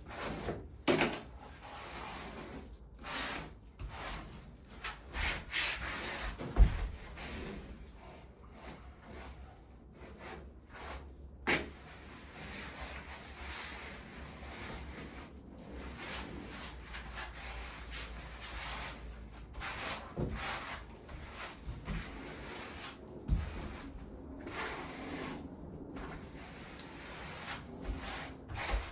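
Gum rubber grout float scraping and spreading wet grout across porcelain floor tiles in repeated rubbing strokes, with occasional knocks.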